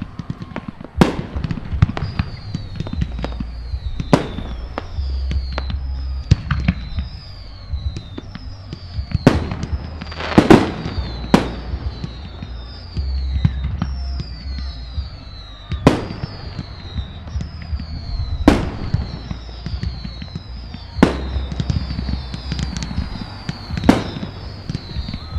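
Aerial fireworks shells bursting in a display, with sharp booms every second or two and smaller pops between them; the loudest bang comes about ten seconds in. A high falling whistle repeats about once a second behind the bangs.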